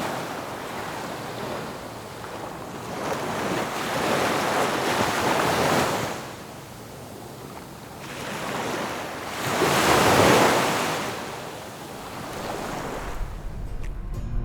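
Sea surf breaking on the shore, the wash swelling and fading in slow surges, loudest about ten seconds in.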